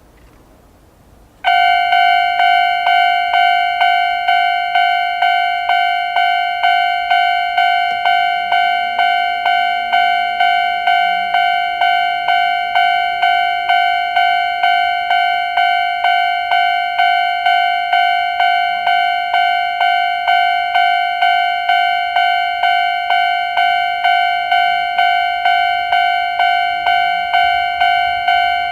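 Japanese railway level-crossing alarm, the old-type standard crossing sound, starting abruptly about a second and a half in and then ringing steadily at about two strikes a second.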